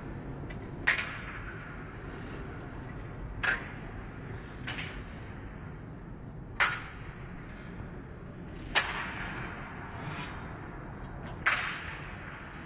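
Steel training sabres clashing and striking in a fencing bout: about six sharp, irregularly spaced clacks, some followed by a short echo of the hall.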